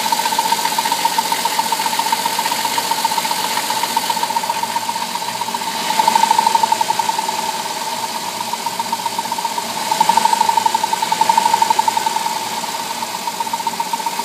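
Chrysler 3.8 L V6 in a 2003 Town & Country van running with a rapid, steady ticking; the ticking is the owner's unexplained noise from this replacement engine. It grows louder twice, about six seconds in and again about ten seconds in.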